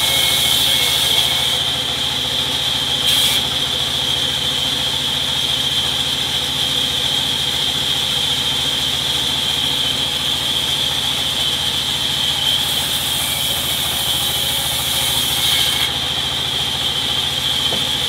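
Sawmill band saw ripping rain tree planks. The running blade gives a steady high whine over a low mechanical hum, and a harsher hiss of the blade cutting through wood comes in the first second or so and again from about 12 to 16 seconds in.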